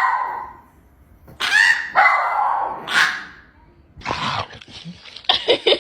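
A dog vocalising in a series of pitched calls, each under a second, followed by shorter, choppier sounds near the end.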